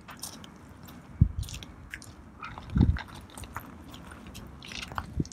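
Footsteps crunching on loose gravel and stony ground, with a few low thumps spaced irregularly through it.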